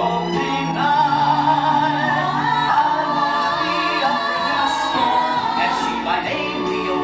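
A small vocal group, women's voices to the fore, singing a show tune together in harmony over musical accompaniment, with long held notes.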